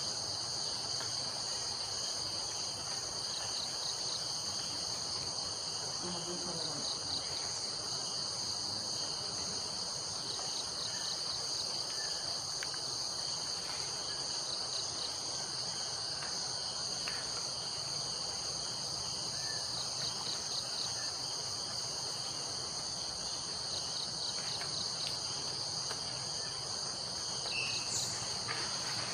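Steady forest insect chorus, a continuous high-pitched trilling made of several overlapping tones.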